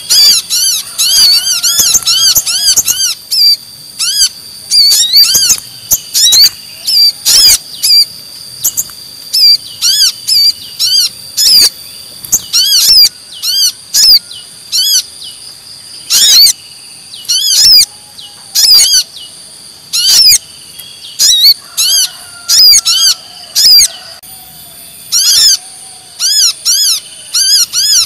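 Bird-lure recording of brown-throated sunbirds' agitated chattering: quick runs of sharp, high chirps in loud bursts with short gaps between, over a steady high-pitched tone.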